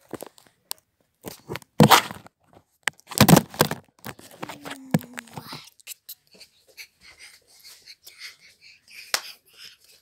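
Rustling, crunching and knocking handling noise as a phone is moved about and rubbed against clothing and bedding, loudest in two bursts early on, with a brief low tone about halfway and a sharp click near the end.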